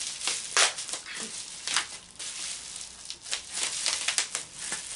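Packaging being handled and worked open: irregular rustling and crinkling scrapes, several sharper crackles among them.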